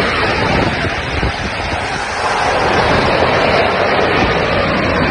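Loud, steady rush of water and air on a handheld camera's microphone as it rides down an enclosed tube water slide into the splash pool.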